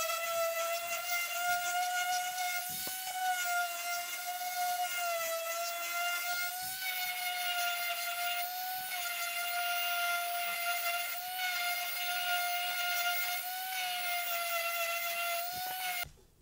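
Random orbital sander with 400-grit paper running on a hardwood cutting board, a steady high whine over a hiss that wavers slightly in pitch as it is worked across the wood, cutting off abruptly near the end. It is knocking down grain raised by wetting the wood.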